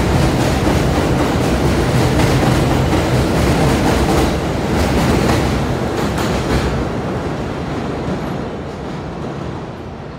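New York City Subway 1 train of R62A cars pulling out and running away along the track: a steady rumble of steel wheels on rail with repeated clicks over the rail joints. The sound loses its hiss about two-thirds of the way through and fades as the train recedes.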